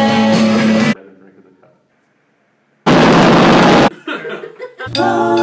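About a second of a rock band playing live, cut off suddenly; after a quiet gap, about a second of very loud, dense noise that starts and stops abruptly, then a short loud snatch of pitched sound, music or voices.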